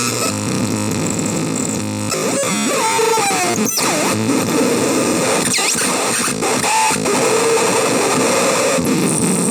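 Homemade CMOS noise synthesizer putting out continuous harsh noise: a dense, distorted wall of sound with squealing tones that glide and bend in pitch, and brief sudden dropouts.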